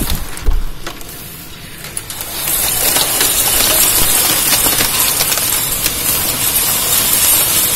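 Large hailstones and heavy rain pelting down: a dense clatter of hail over a steady hiss of rain. About two seconds in it grows much louder and stays that way.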